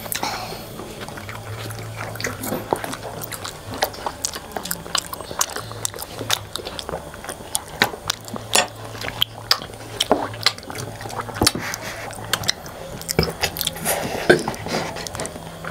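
Close-up eating sounds of people biting and chewing fried chicken nuggets and instant noodles: irregular sharp mouth clicks, smacks and wet chewing.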